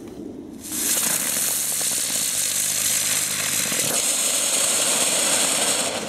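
A 'Brummer' ground-spinner firework burning with a loud, steady hissing buzz. It flares up about a second in and dies away near the end.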